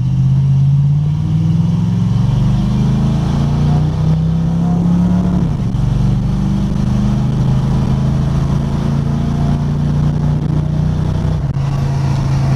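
Chrysler 318 V8 with a Holley four-barrel carburetor accelerating hard, heard from inside the truck's cab. Its pitch climbs for about five seconds, drops sharply as the automatic shifts up, then rises slowly and holds as road speed builds.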